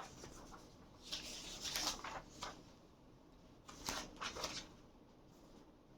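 Paper sheets rustling and crinkling as they are handled, in a few short faint bursts.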